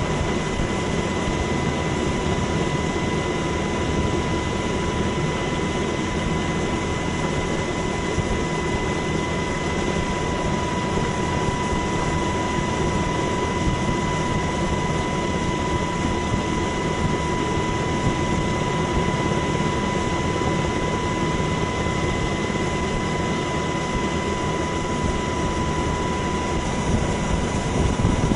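Steady aircraft engine noise with a constant high-pitched whine, unchanging throughout.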